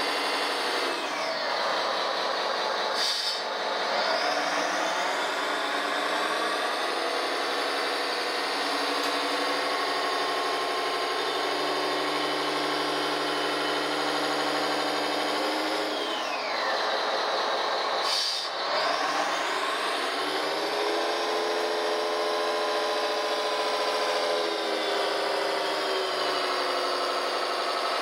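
RC model Komatsu dump truck's electric drive and gearbox whining steadily, the pitch dropping and then climbing again twice as the truck slows and pulls away. A short hiss comes near each slowdown, a few seconds in and again about two-thirds of the way through.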